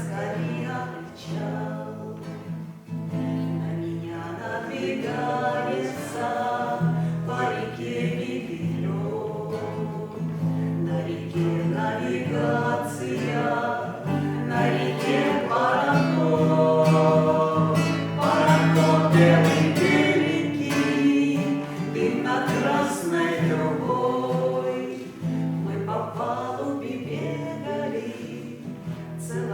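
A song: voices singing together to an acoustic guitar.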